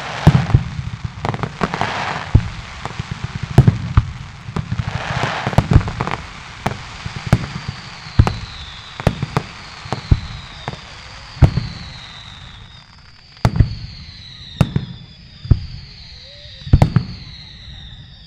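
Fireworks display: irregular booms of shells bursting, with crackling through the first few seconds and a run of repeated high falling whistles in the second half.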